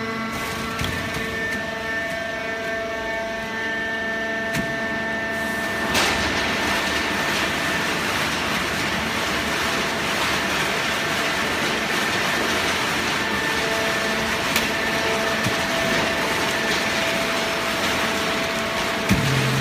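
Hydraulic baling press running: a steady machine noise with several held hum tones, growing louder and noisier after a sharp click about six seconds in.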